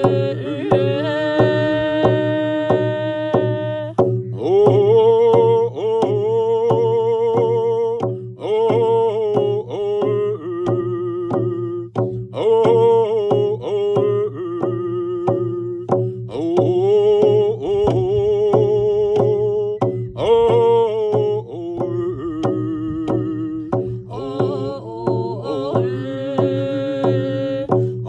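Singing voices over a steady beat struck on hand-held frame drums, each stroke evenly spaced; the sung notes are held with a wavering vibrato.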